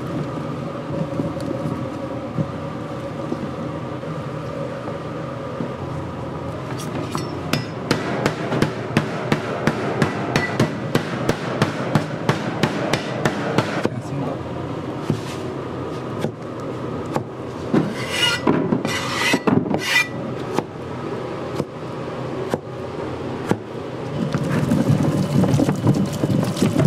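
Cleaver chopping cucumbers on a plastic cutting board: a long run of quick, even knocks over a steady background hum. Near the end, chopped cucumber pieces tumble into a plastic tub.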